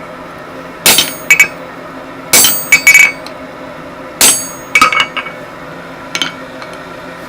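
Hammer blows forging 25 mm square mild steel stock on an anvil: three heavy strikes about a second and a half apart, each followed by a couple of lighter clinks with a bright metallic ring, then one faint tap near the end. A steady low hum runs underneath.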